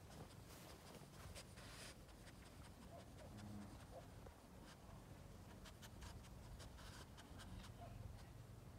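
Very faint rustling and small scattered clicks of grass and leaves as a Boston terrier noses and nibbles in the garden plants.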